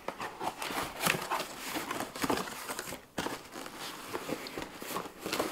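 Cardboard box being opened by hand: flaps pulled and torn and the carton shuffled and scraped on a wooden table, a run of irregular rustles, scrapes and light knocks.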